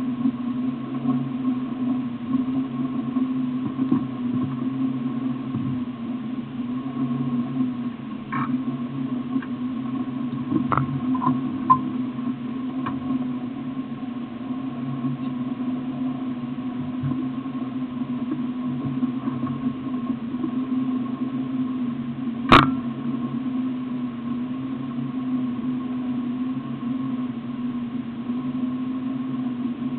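Steady low hum that keeps an even pitch, with a few faint clicks and one sharp click about two-thirds of the way through.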